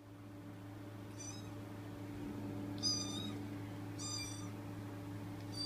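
Recorded cat meows from a sound-effects track played over a speaker: four short, high-pitched meows about a second and a half apart, over a steady low hum.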